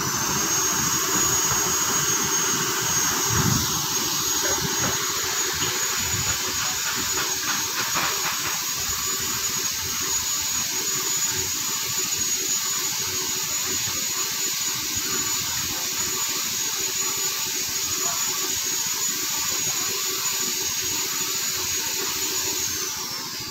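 A high-speed motor running steadily with a high whine over a hiss, winding down near the end.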